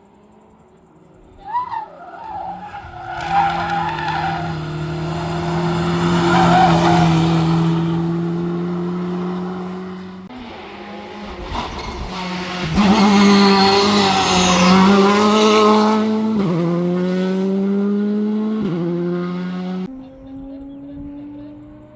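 Competition car engine at high revs on a hillclimb, with tyres squealing and skidding. The engine note holds steady, cuts off suddenly about halfway, picks up again, then drops and climbs twice near the end as it shifts gear.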